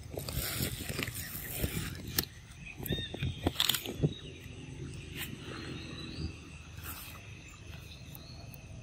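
Macaques biting and chewing ripe fruit up close: a run of wet smacks and clicks that is busiest and loudest in the first four seconds, then softer chewing. Short high chirps sound in the background.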